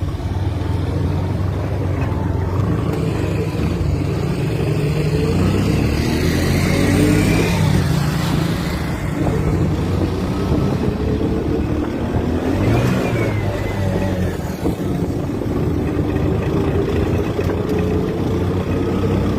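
Engine of a moving road vehicle, heard from on board as it travels along a rough road, its revs rising for a few seconds near the middle.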